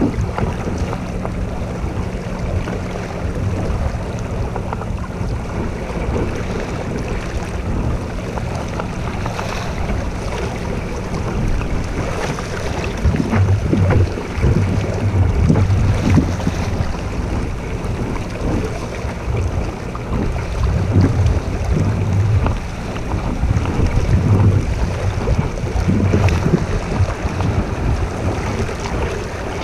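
Wind buffeting the microphone over water splashing against a boat, with heavier gusts from about halfway through.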